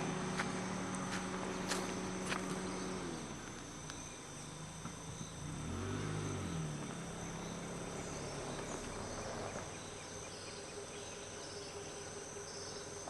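Steady insect chorus with high, even tones, over outdoor ambience. A faint low hum rises and falls around the middle.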